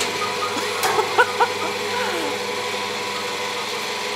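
Homemade passenger lift running: its electric hoist motor hums steadily as the cage climbs the lattice mast.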